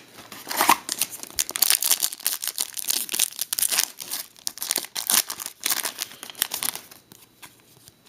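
A foil trading-card pack wrapper crinkling and tearing as it is opened and handled, a dense crackle that tapers off near the end.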